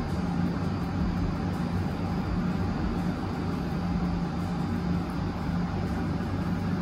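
A steady low hum with a constant hiss, unchanging throughout, like a motor running in the room.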